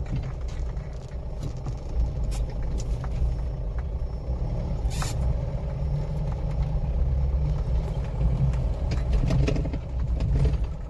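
Engine and low road rumble of a vehicle crawling over a rough, potholed dirt track, heard from inside the cabin, with scattered knocks and rattles as it bounces over the ruts. A brief hiss about five seconds in.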